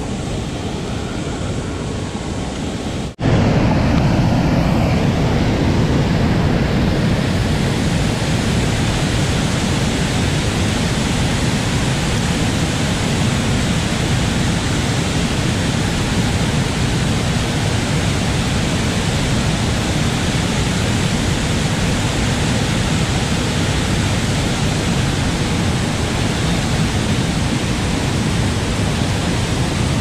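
Steady rush of water pouring through a small dam's spillway gates and churning in the rapids below, louder after an abrupt cut about three seconds in.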